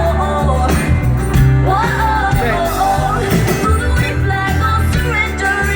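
Live pop-rock band playing a song with a woman singing over it. Her sung line slides up and down in held notes and runs, with no clear words.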